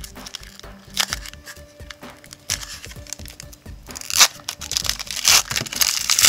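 A trading-card pack's wrapper being torn open and crinkled in the hands, with the loudest tearing about four to five and a half seconds in.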